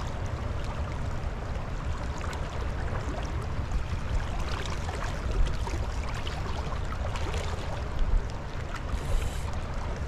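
Creek water running steadily, a continuous rushing with a heavy low rumble and small scattered splashy ticks.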